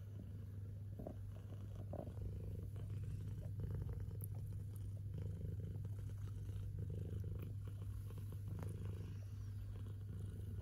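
Nursing mother cat and her suckling kittens purring: a steady low rumble that swells and eases, with a few faint clicks.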